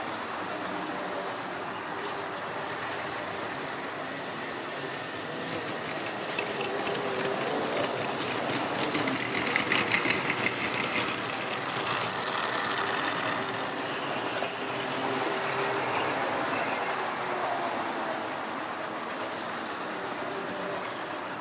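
Electric model railway trains running on the track: a steady motor hum and the rolling noise of wheels on rail. About halfway through there is a rapid clicking of wheels over the rail joints as a train of wagons passes close.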